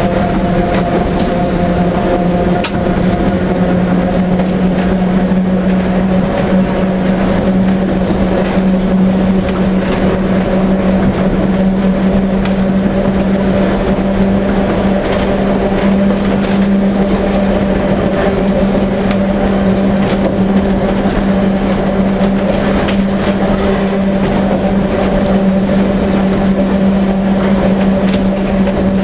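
Manx Electric Railway wooden electric tramcar running along the line, heard from inside the car: a steady humming tone over the clatter and rattle of the car on the rails, with frequent small clicks and knocks.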